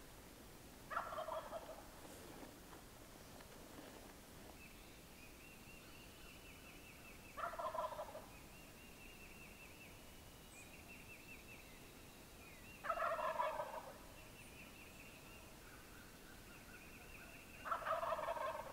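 Wild turkey gobbling four times, about five seconds apart.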